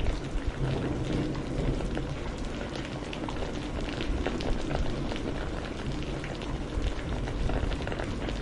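Steady rain: a constant hiss of rainfall dotted with many distinct drop ticks, with a deep low rumble beneath.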